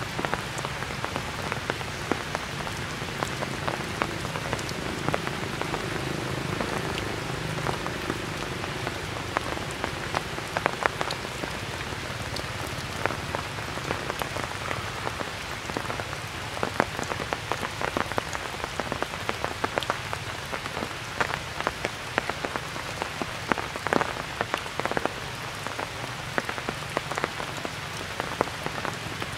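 Steady rain: a constant hiss with many separate drops ticking sharply close by.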